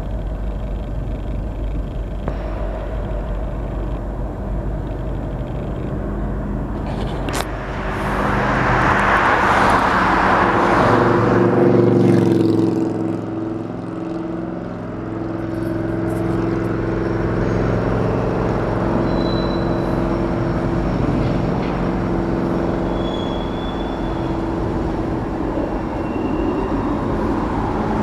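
Road traffic with a steady low engine hum. A car passes close by a little over halfway through, loudest as it goes by, and its sound drops in pitch as it moves away.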